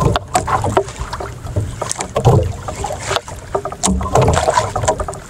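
Water slapping and lapping against a small outrigger boat's hull, with irregular knocks and clicks from the boat and some wind on the microphone.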